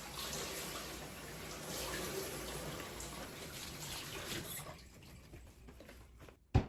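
Kitchen tap running, water splashing into the sink during hand-washing, stopping about three-quarters of the way through; a single sharp knock near the end.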